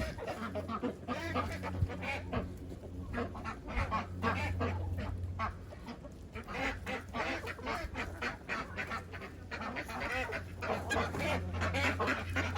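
Backyard ducks and chickens calling: many short, overlapping quacks and honks, thickest in the second half, over a steady low hum.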